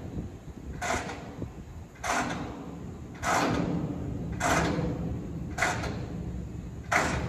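Covered hopper cars rolling slowly on the rails, with a low rumble and a short metallic scrape or squeal from the wheels and running gear repeating about once a second.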